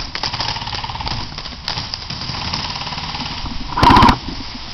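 Airsoft guns firing on full auto, a fast continuous rattle of shots. A single louder, closer burst lasting under half a second comes about four seconds in.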